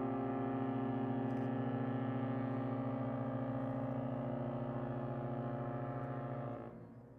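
Queen Mary 2's ship horn sounding one long, steady blast as the liner gets under way from its berth. It cuts off near the end.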